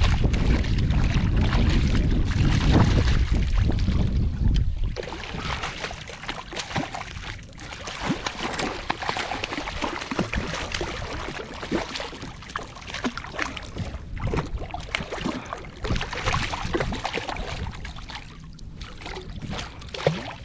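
Hooked redfish thrashing at the surface beside a kayak: a run of sharp, irregular splashes and sloshing water. A low rumble covers the first five seconds or so.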